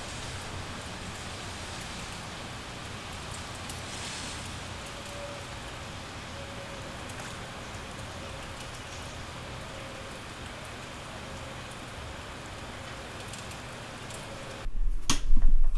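Steady rain outside, heard through a slightly opened window. Near the end, loud bumping and rumble as the microphone is moved.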